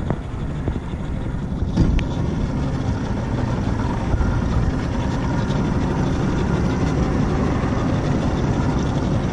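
Boat motor running steadily at low speed, with a sharp knock about two seconds in.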